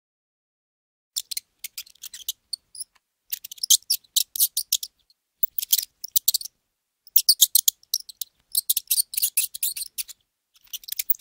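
Mouse squeaking: rapid, high-pitched squeaks in irregular bursts, starting about a second in.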